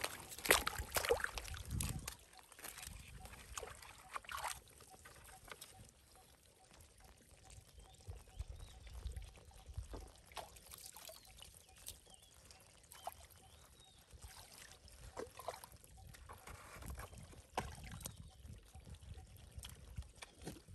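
Muddy water splashing and sloshing as a mud crab is pulled out of a flooded hole with long metal tongs, loudest in the first two seconds. After that come soft scattered clicks and squelches of wet mud.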